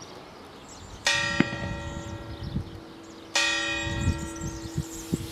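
Church tower bell struck twice, a little over two seconds apart. Each stroke rings on and slowly fades.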